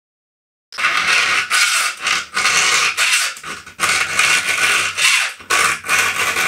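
A round file rasping across the cutters of a chainsaw ripping chain clamped in a vise, in a quick run of back-and-forth strokes that starts about a second in: the chain is being sharpened tooth by tooth.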